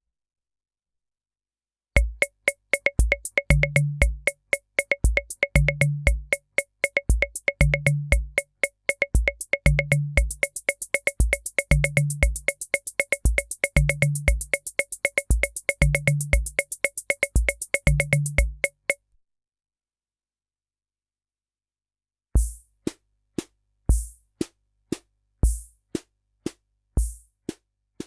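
Korg SR-120 (Mini Pops) analog rhythm machine playing preset rhythm patterns: a steady pattern of low drum thumps, a higher drum and sharp clicks starts about two seconds in, with a fast run of high ticks joining about halfway. It stops, and after a short pause a sparser pattern of low thumps and high hiss-like hits begins.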